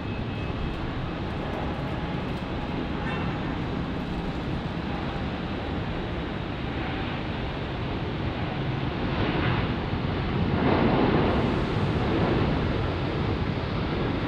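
Jet airliner engines running in a steady, wide rush that swells louder about nine to twelve seconds in as the aircraft passes close.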